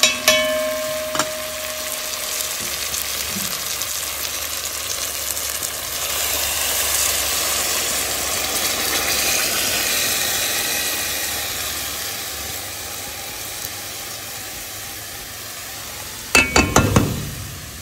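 Curry chicken frying and sizzling in a metal pot as a fork stirs and scrapes it, with a short metallic ring at the start. Liquid with scallions and peppers is poured in, and the sizzle swells for a few seconds, then eases off. A quick run of sharp knocks comes near the end.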